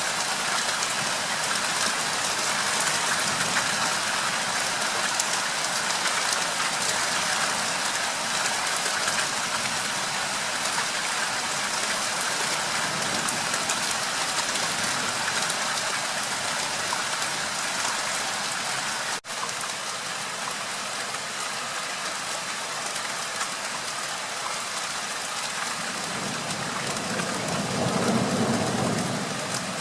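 Steady rain falling, an even hiss of drops on surfaces. Near the end a low rumble swells for a few seconds.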